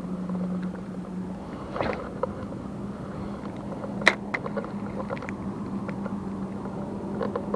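A boat engine running steadily with an even low hum, with a few scattered clicks over it, the sharpest about four seconds in.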